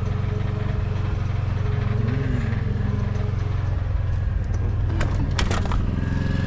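Generator engine running steadily with a low drone, powering the camper's furnace and electrics. A short rattle of sharp clicks comes about five seconds in.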